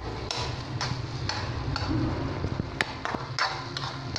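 Spatula stirring thick carrot halwa in a metal frying pan, each stroke a short scrape against the pan, about two a second.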